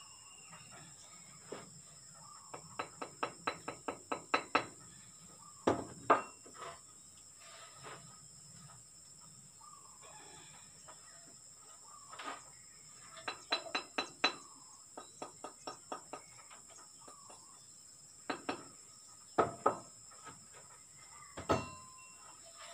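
Bricklayer's trowel tapping and knocking concrete blocks into a mortar bed on top of a wall: quick runs of light taps at about four or five a second, with a few louder single knocks.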